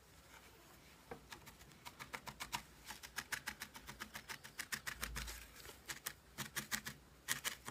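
A felting needle stabbing repeatedly into wool as it is felted onto a needle-felted doll's shoulders, making quick crisp ticks several times a second, with a short pause about five seconds in.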